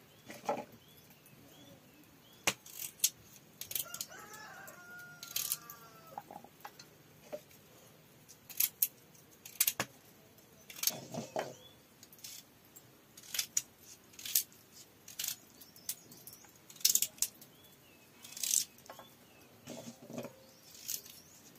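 Scattered sharp clicks and knocks at irregular intervals. A chicken clucks briefly about four seconds in, and small bird chirps come now and then.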